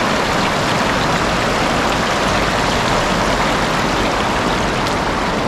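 Shallow river water rushing over stones and around a boulder close by, a steady, loud rush.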